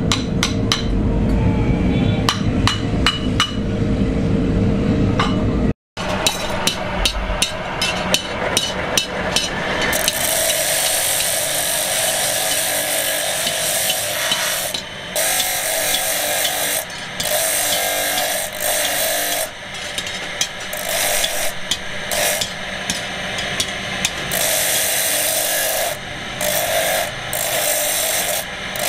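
A run of sharp knocks in quick succession over a steady hum for about the first ten seconds. Then a bench grinder's wheel grinding the edges of a cast aluminium motorcycle brake shoe, the grinding noise easing and returning every second or two as the piece is pressed to the wheel and eased off.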